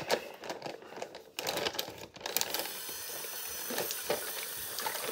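Plastic zip-top bag crinkling and clicking as it is handled over a sink, then a bathroom faucet is turned on a little over two seconds in and water runs steadily into the basin, with small knocks on top.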